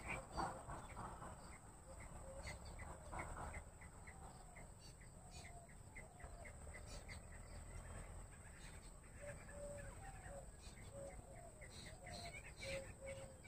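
Bush quail calling faintly: a string of short, sharp chirps, joined in the second half by a run of brief, clear low whistled notes.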